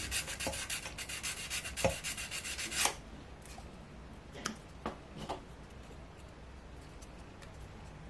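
Sandpaper rubbed back and forth in rapid strokes over a small wooden puzzle piece, easing a tight tab so it fits its slot. The sanding stops about three seconds in, followed by three light clicks and then quiet.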